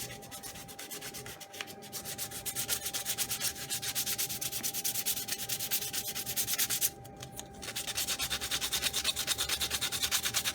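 Sandpaper rubbed by hand over small wooden latch pieces in quick, even back-and-forth strokes, with a short pause about seven seconds in before the strokes resume.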